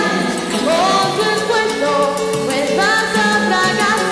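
A girl singing a song into a handheld microphone over instrumental accompaniment with a steady beat, her voice holding and sliding between notes.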